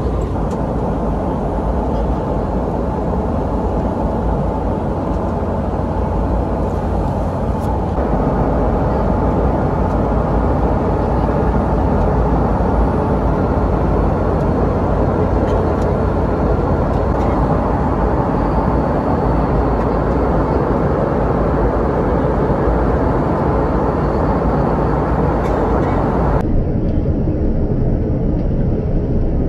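Steady cabin noise of a Boeing 717-200 in flight: a dense rush of air with a low drone from its rear-mounted Rolls-Royce BR715 engines. It grows a little louder after about eight seconds and turns duller a few seconds before the end.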